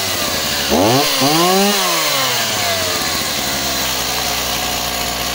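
Stihl 024 AV Wood Boss two-stroke chainsaw idling, revved once about a second in and easing back down to a steady idle by about three seconds. The owner feels it runs heavy low down and puts that down to needing a carburettor service.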